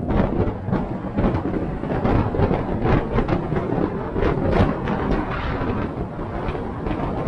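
Off-road 4x4 driving over a rough track: a loud rumble with constant rattling and knocking, which comes in suddenly at the start.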